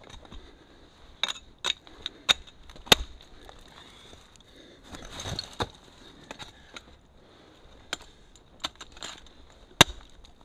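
Ice tool picks and crampon points striking a frozen waterfall: about eight sharp, irregular thwacks of steel biting into the ice, with crunching and scraping of ice between them.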